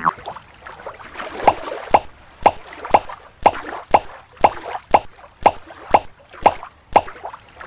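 Evenly spaced plops, about two a second, over a faint trickling hiss.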